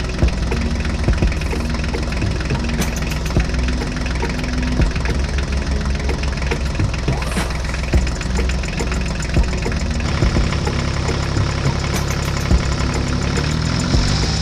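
Vehicle engine idling with a rapid, even knocking beat; about ten seconds in the sound shifts, a deeper steady drone coming in.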